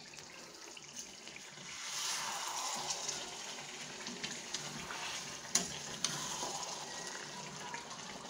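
Chicken curry cooking in a kadai, its liquid sizzling and bubbling in a steady hiss that grows louder about two seconds in, with a sharp click about halfway through. The chicken is at the kosha stage, being braised down in its masala.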